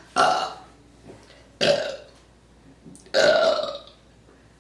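A woman burping loudly three times, about a second and a half apart, each burp short and rough with a falling pitch.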